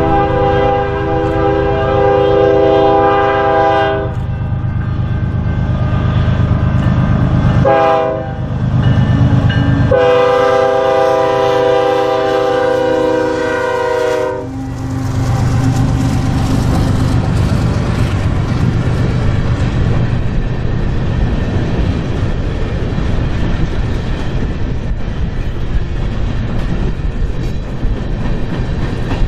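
BNSF diesel locomotives' air horn blowing a long blast, a short one about eight seconds in and another long one around ten to fourteen seconds, as the coal train approaches. The locomotives then rumble past, and a long string of coal cars rolls by with steady wheel-on-rail noise.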